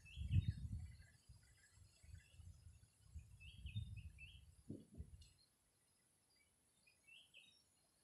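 Wind buffeting the microphone in gusts, loudest near the start, then dying away after about five seconds. Short high bird chirps, often in pairs, come a few times over it.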